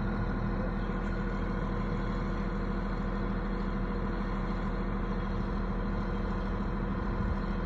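A heavy machine's engine idling steadily with an even, unchanging drone.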